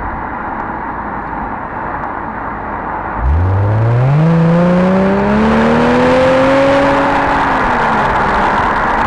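Exhaust of a 2007 Subaru Outback 3.0R's EZ30 flat-six, heard from just behind the tailpipes while driving, over steady wind and road noise. About three seconds in, the engine is opened up and its note rises steeply, then keeps climbing more slowly for about four seconds before easing off and falling near the end.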